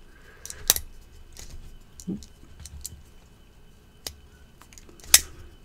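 Benchmade Griptilian folding knife being opened and shut on its AXIS lock, whose springs are stiffer than usual for a Benchmade: sharp metallic clicks, one loud snap near the start and two near the end, with lighter ticks between.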